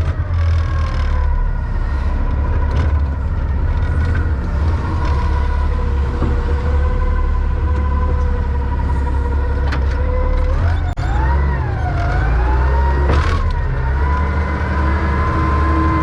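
John Deere 444 wheel loader's diesel engine running under load, with a steady whine that wavers up and down about two thirds of the way through as the hydraulics work. A few sharp knocks from the logs being handled.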